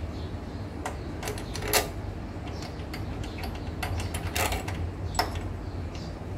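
Scattered metallic clicks and clinks from hand work on a petrol lawnmower engine as parts are handled and adjusted, the sharpest about two seconds in and about five seconds in, over a steady low hum.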